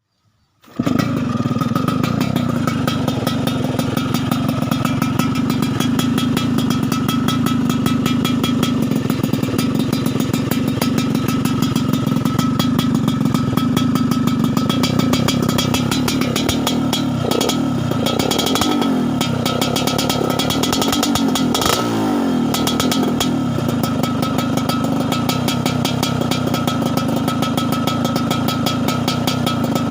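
Motorcycle running through an aftermarket 'plat karat' exhaust with a 38 body, tuned for a deep, crisp snoring exhaust note, with a fast even pulse. It starts about a second in, and its pitch rises and falls a few times past the middle as the throttle is worked.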